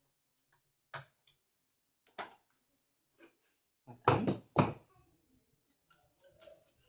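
Scattered clicks and knocks of tools and drill parts being handled while the rotary hammer drill is screwed back together, with two louder knocks a little after four seconds.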